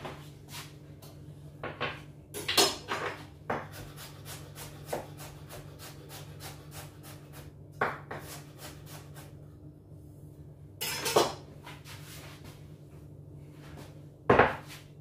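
Kitchen knife chopping pieces of apple on a wooden cutting board: runs of quick taps on the wood, with a few louder knocks and clatters, the loudest near the end.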